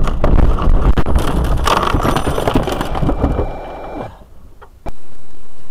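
A car crashing off the road through bushes and small trees, heard from inside the car: a loud run of cracks, thumps and scraping as branches hit and drag along the body, dying away after about three and a half seconds. About a second later a steady noise starts suddenly.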